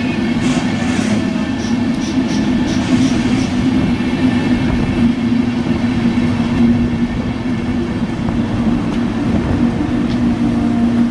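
Train running with a steady drone and a strong steady hum, with a short run of light ticks, about three a second, a couple of seconds in.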